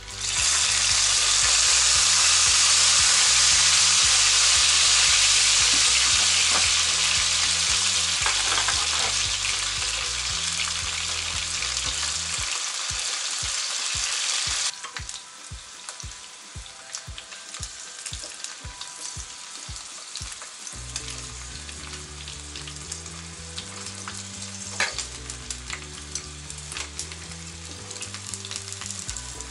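Ginkgo nuts hitting hot oil in a frying pan and sizzling loudly at once while they are stirred with chopsticks. About halfway through the sizzle drops abruptly to a quieter frying, with scattered crackles and pops as the nuts cook in the oil.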